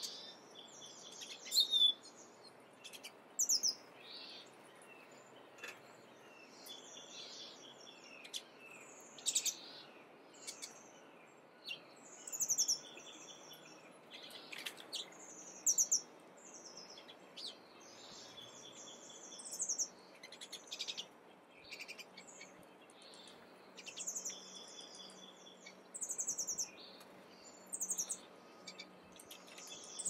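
Several small songbirds chirping and calling, short high notes and quick chirp series coming every second or two.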